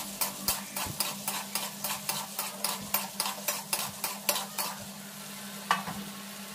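Potato cubes sizzling in hot oil in a steel kadhai while a spatula scrapes and knocks against the pan about three times a second as they are stirred. The stirring stops after about four and a half seconds, leaving the sizzle with one last knock.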